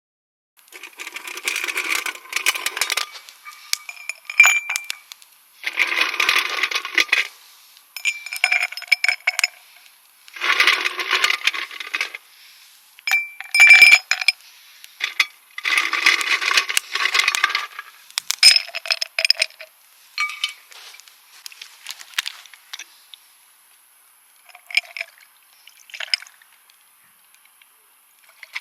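Cookware clinking and scraping in repeated bouts of one to two seconds, with sharp ringing clinks among them, dying away near the end.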